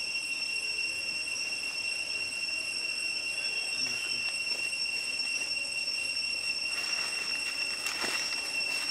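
Insects droning in the forest: one steady high-pitched tone that never lets up. A few short clicks and rustles come near the end.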